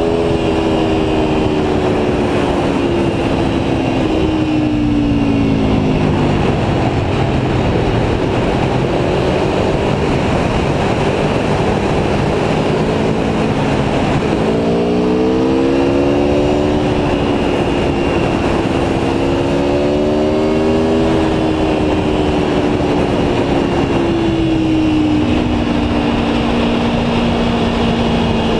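Aprilia Tuono V4 1100 Factory's V4 engine running under way, its pitch falling off over the first several seconds, rising again about halfway through and easing to a steady note near the end, over heavy wind rush.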